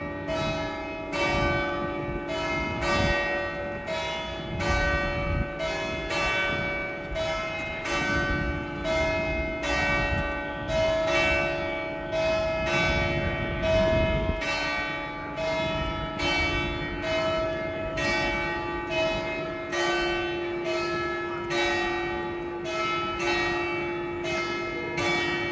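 The church bells of St Mark's Campanile ringing in a rapid, even run of strokes, each ring overlapping the next, over a steady lingering hum.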